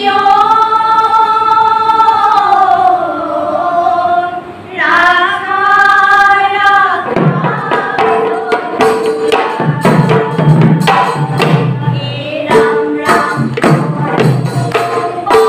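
A group of women singing a devotional chant together in long, slowly gliding held notes. About seven seconds in, a barrel drum and sharp hand percussion come in with a steady beat under the singing.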